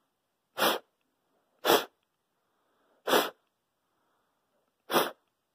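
Four sharp, forceful puffs of breath blown through a two-layer cloth face mask at a candle flame, each about a quarter second long and spaced about a second or two apart.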